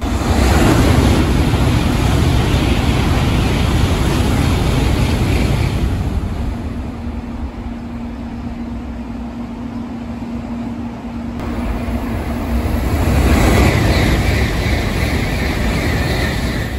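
N700-series Shinkansen trains passing through the station at speed: a loud rush of wheels and air that eases after about six seconds to a lower run with a steady hum, then builds again as another train rushes past close by.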